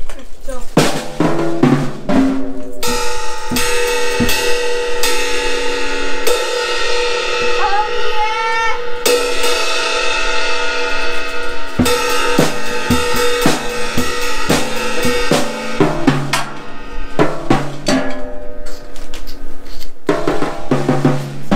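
Pearl Roadshow acoustic drum kit being played with sticks: scattered hits on the drums, with cymbal crashes left ringing for several seconds in the middle.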